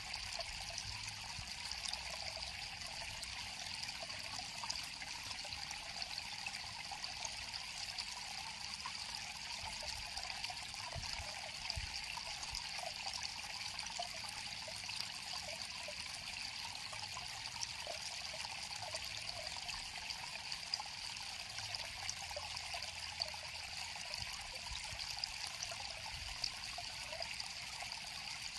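River water flowing and trickling steadily over stones, a continuous even rush without breaks.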